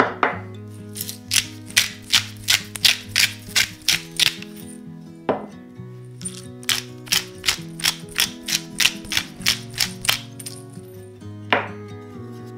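Knife chopping vegetables on a cutting board in two quick runs of even strokes, about three a second, with a sweeping sound near the start, in the middle and near the end. Soft background music runs underneath.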